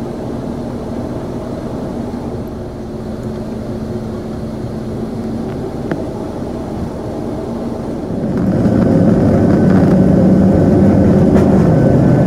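Boeing 777 jet engines heard from inside the cabin while the airliner taxis: a steady rumble that grows louder about two-thirds of the way in as the engines spool up, with a steady high whine joining it.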